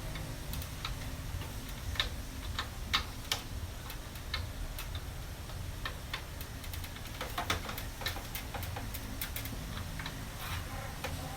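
Irregular small clicks and taps of power-supply cable connectors being handled and plugged back into a computer motherboard, over a low steady background hum.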